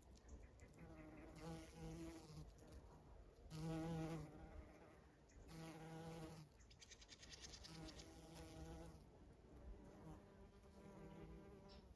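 A bumblebee buzzing in flight as it forages from flower to flower. The low, even-pitched hum swells and fades in bursts of about a second, roughly every two seconds.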